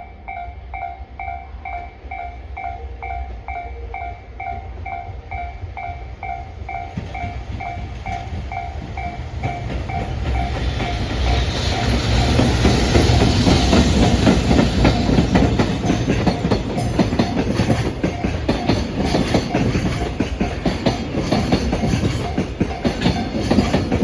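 Level-crossing warning bell dinging steadily, about twice a second. From about eight seconds in, a freight train approaches and drowns it out: an EF210 electric locomotive hauling a dead-in-tow DD200 diesel and container flatcars passes close by, with loud rumble and rapid wheel clatter over the rail joints.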